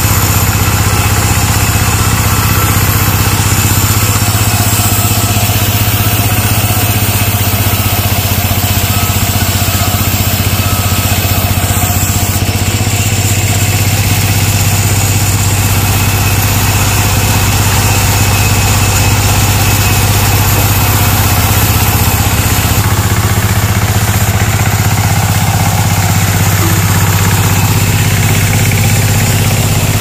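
Homemade wooden-framed band saw mill running, its drive motor giving a steady, very loud drone.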